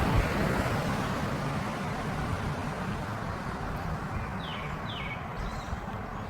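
Road traffic rushing past and slowly fading away, with two short, falling high chirps about four and a half seconds in.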